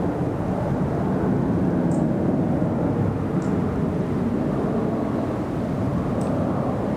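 Steady low rumble of distant engine noise outdoors, swelling slightly early on, with a few faint short high chirps over it.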